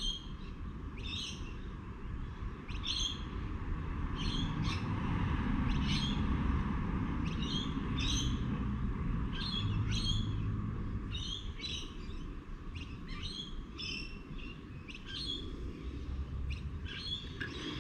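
A bird chirping over and over, short high chirps about once a second, over a steady low background noise.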